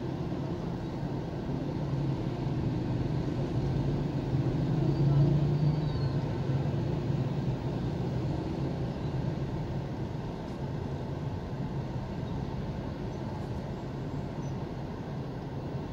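Road traffic and engine noise heard from inside a moving car: a steady low drone with an engine hum that swells louder about five seconds in, then settles.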